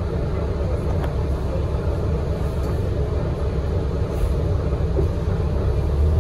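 Steady low rumble of a 2017 Gillig BRT transit bus heard from inside the cabin: engine and road noise as the bus moves off.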